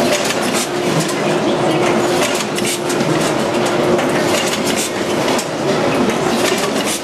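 C-Pack VAC 929 onion net-bagging and clipping line running: a steady mechanical clatter of rapid clicks and rattles. A steady hum sounds through the first few seconds and then fades into the clatter.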